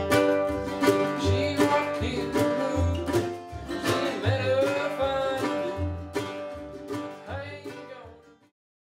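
Acoustic folk music: guitars strummed and picked over a steady low beat, fading out near the end.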